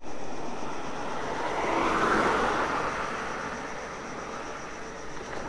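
A car driving past on the road, its noise swelling to a peak about two seconds in and then fading away.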